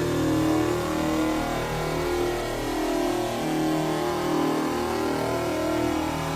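Electronically processed drone from a 4ormulator v7 audio effect unit: layered buzzy tones that jump to new pitches about every second, with warbling glides above them.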